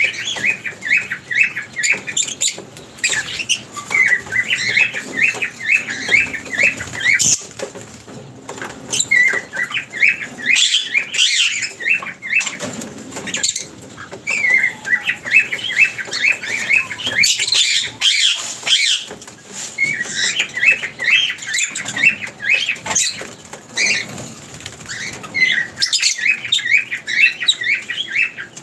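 A flock of small birds chirping at a feeding spot, in repeated runs of quick high chirps, with scattered sharp flutters of wings.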